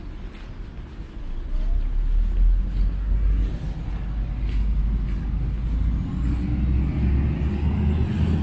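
Road traffic passing: the low rumble of a motor vehicle on the avenue, swelling about a second and a half in and carrying on steadily.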